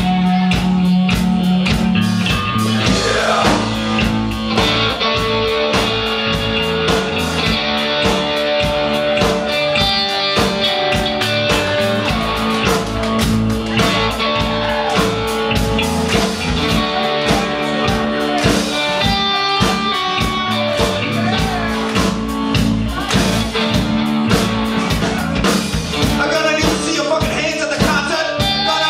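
A live rock band playing: electric guitars and a drum kit keeping a steady beat, with a singer's voice at times.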